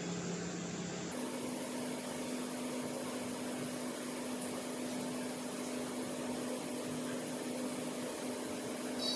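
Steady mechanical hum with hiss, like a running fan or household appliance. About a second in, the hum's pitch steps up slightly and then holds.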